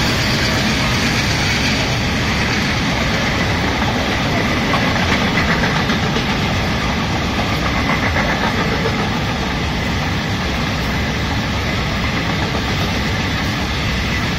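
ICF passenger coaches of an Indian Railways express train running past close by at speed: a steady loud rumble of wheels on the rails with rushing air, easing slightly near the end.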